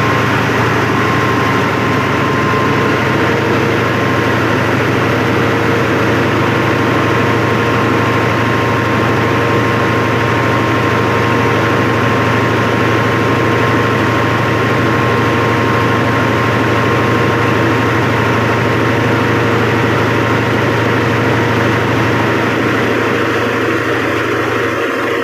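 Open, unenclosed 1000 kVA Cummins diesel generator set running steadily with a constant low engine hum.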